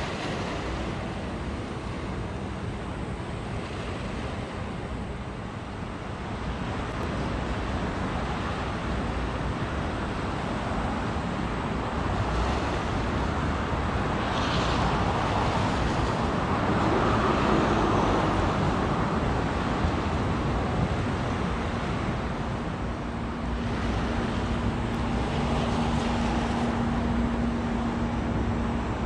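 Rushing water of a passing container ship's bow wave and wash, with wind on the microphone, swelling in the middle. A steady low hum comes in near the end.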